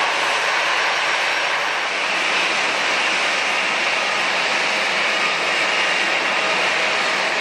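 Jet airliner engines running steadily: an even rushing noise with a faint whine through it, with no rise or fall.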